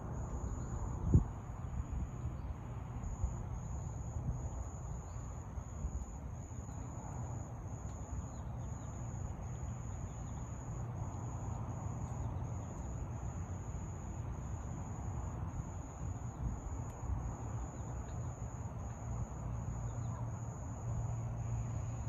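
Insects trilling: one steady high-pitched trill, broken by brief gaps about once a second, over a low uneven rumble. There is a single sharp knock about a second in.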